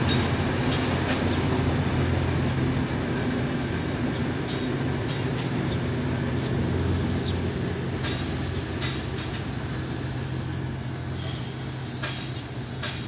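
A steady low mechanical rumble with a hum in it, slowly fading, with a few light clicks over it.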